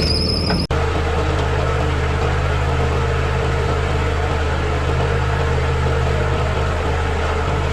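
Diesel engine of heavy machinery running steadily at an even speed, dropping out for an instant under a second in.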